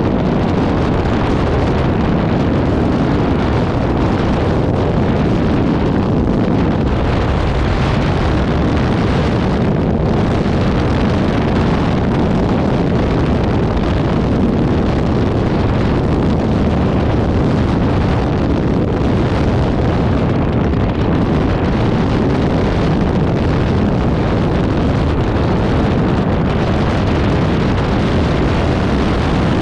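Aerolite 103 ultralight in flight: its two-stroke pusher engine running steadily under heavy wind rush on the open-cockpit microphone, at an even level throughout.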